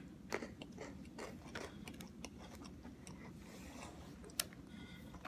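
A child chewing a matcha-coated Pocky biscuit stick: faint, irregular crunches close to the microphone, with one sharper click near the end.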